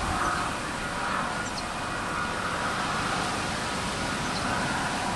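KiwiRail EF-class electric locomotives hauling a train slowly through the junction, a steady hum and rumble with faint steady tones.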